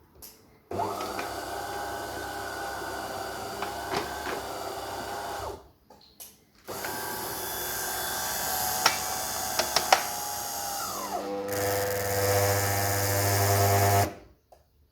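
De'Longhi Autentica ETAM29.513 bean-to-cup coffee machine's motor running in two spells of about five and seven seconds, with a few sharp ticks. Partway through the second spell the pitch drops and it settles into a loud low hum before cutting off suddenly. This hum with the brew unit in its upper position is the machine's fault.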